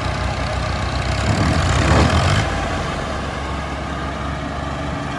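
Heavy diesel engine of farm machinery running, growing louder from about a second in and dropping back sharply about two and a half seconds in.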